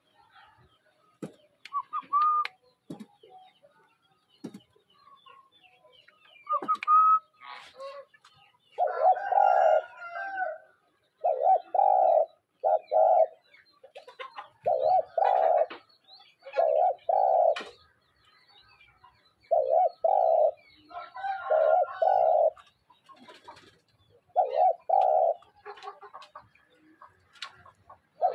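Spotted dove cooing in repeated phrases of two or three low coos, about eight phrases with gaps of a second or two, starting about nine seconds in. Before that there are only a few faint short chirps and clicks.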